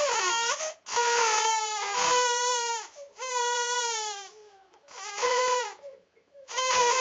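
A young child bawling: loud, long wailing cries, five or so in a row, the pitch sliding down through each, with short catches for breath between them.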